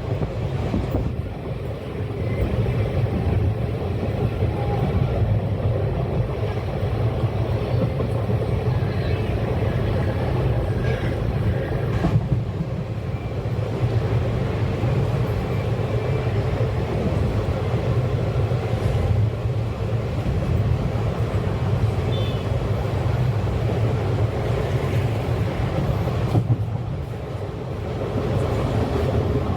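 Passenger train running along the track: a steady rumble of wheels on rail, with a single sharp click about twelve seconds in.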